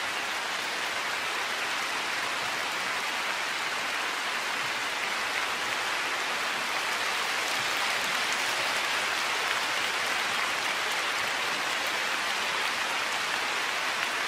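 A packed arena crowd applauding at the end of a figure skating program: thousands of hands clapping in a dense, steady ovation that holds at an even level throughout.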